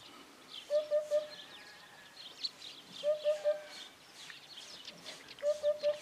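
Eurasian hoopoe giving its three-note 'oop-oop-oop' call three times, about two and a half seconds apart. Smaller birds chirp faintly and higher-pitched in the background.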